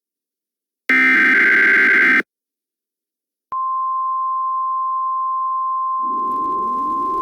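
Emergency Alert System tones: one burst of the harsh, buzzy digital header data, a short silence, then a steady single-pitch attention tone starting about three and a half seconds in. About six seconds in, a lower tone rising in pitch like a siren winding up joins underneath.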